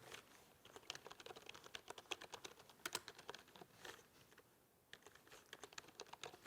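Faint typing on a computer keyboard: rapid, irregular key clicks, with a short pause about four seconds in.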